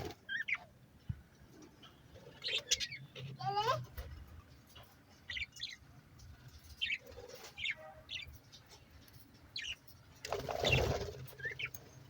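Budgerigars chirping in short, scattered calls, with one wavering, warbled call about three and a half seconds in. A louder rustle comes near the end.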